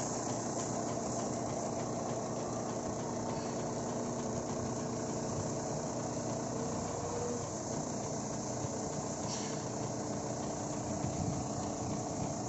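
Automatic foam-and-water bus washing machine running steadily with a bus in it: a low, even hum of several tones under a steady hiss.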